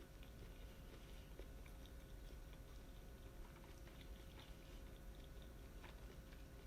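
Faint chewing of grilled yakitori, with a few soft scattered mouth clicks over a low steady hum.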